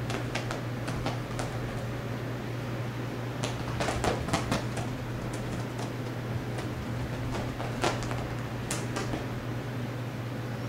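Cats scampering after a laser dot: scattered light scuffs and claw clicks on carpet and hard floor, a quick cluster about four seconds in and a couple more near the end, over a steady low hum.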